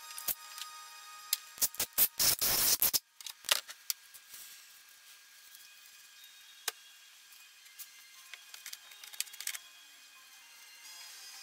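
Background music, with a quick run of sharp clicks and knocks about two to three seconds in and a few single clicks later, from hand work on a brake caliper being taken apart for a rebuild kit.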